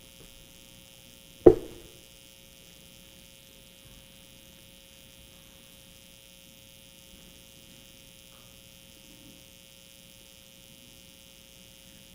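Steady electrical mains hum, with one sharp knock about a second and a half in.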